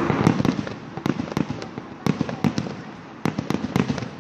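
Aerial fireworks shells bursting: about a dozen sharp bangs in quick, irregular succession over a low, continuous rumble.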